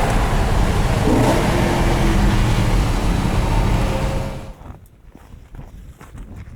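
Car driving, engine and road noise, which stops abruptly about four seconds in and gives way to a much quieter stretch with footsteps.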